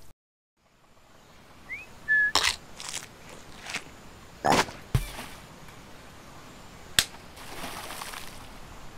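A run of cartoon sound effects over a faint hiss: a short rising whistle-like chirp, then several sharp snaps and hits, with a low thump just after the loudest hit, and a single sharp click later on.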